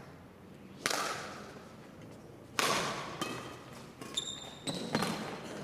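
Badminton rackets striking a shuttlecock in a rally: a sharp hit about a second in, another a couple of seconds later, then lighter hits near the end, each ringing out in the echo of a large hall. A brief high squeak comes about four seconds in.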